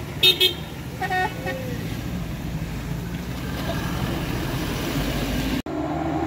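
Vehicle horn tooting: two short toots in quick succession at the start and a third about a second in, over the steady low running of engines on the climb. Near the end the sound breaks off sharply and a different engine note takes over.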